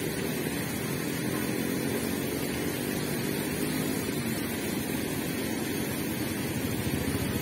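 Steady low rumbling background noise with a faint hum, unchanging throughout.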